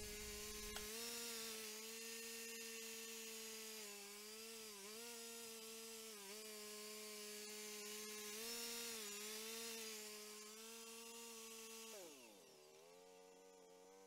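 Cook's 3238 sawmill's 35 hp gas engine running steadily at speed, dipping briefly in pitch a few times. About twelve seconds in it slows, the pitch falling, and it settles to a lower, quieter idle.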